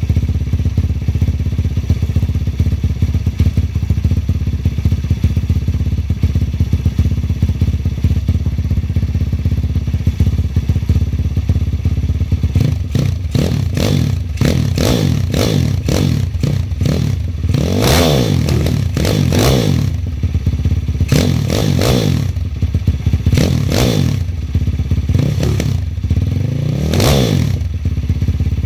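The 160cc engine of a small ATC idles steadily on its first start-up. Then, from a little under halfway through, it is revved again and again in short throttle blips, each rising and falling in pitch.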